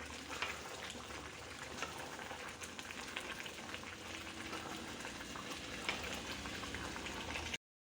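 Pot of banana, pumpkin and arrowroot stew simmering: a steady hiss with many small pops and crackles, cutting off abruptly near the end.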